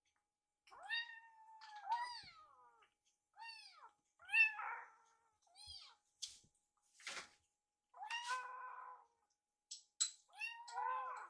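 Kittens meowing, about seven short, high-pitched mews, some rising and falling in pitch. A couple of faint clicks come near the middle.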